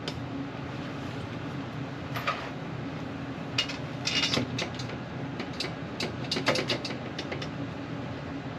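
Sheet-metal access door of an air handler being worked back into place: scattered light metallic clicks, knocks and rattles. A steady low hum from the running unit lies under them.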